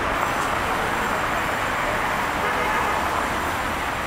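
Steady city road traffic, cars driving past close by with a continuous, even noise.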